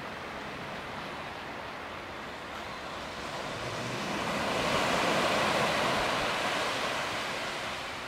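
Wave breaking and washing up the shore: a hiss of surf that swells about halfway through and fades toward the end.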